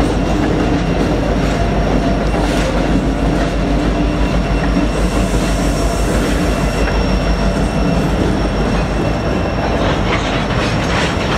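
CN double-stack container freight cars rolling past at speed, wheels clacking over the rail joints with a faint steady wheel squeal over a constant rumble.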